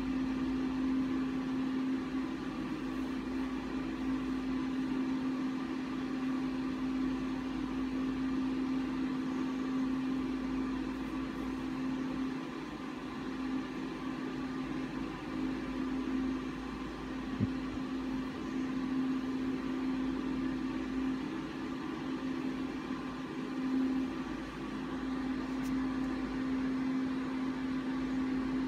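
Steady hum of a small motor or fan running, with one constant droning pitch and a faint higher whine over it.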